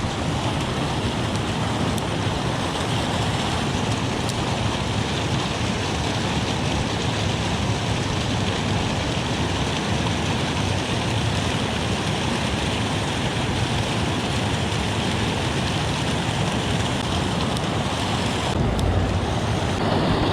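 Steady rush of water spilling over a dam, an even wash of noise with no let-up. A low rumble joins near the end.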